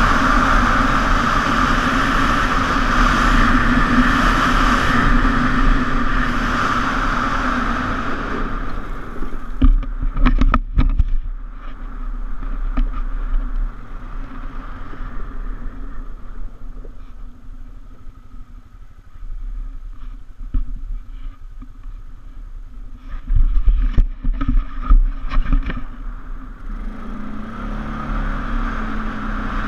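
ATV engine running steadily under throttle, then easing off to a quieter, lower run about eight seconds in. Loud knocks and rattles come twice, around ten seconds and again around twenty-four seconds, as the quad jolts over the rocky track; near the end the engine picks up again with a rising pitch.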